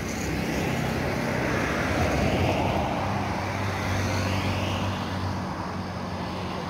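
Road traffic: a motor vehicle's engine and tyres passing on the road, loudest about two seconds in, then slowly fading away.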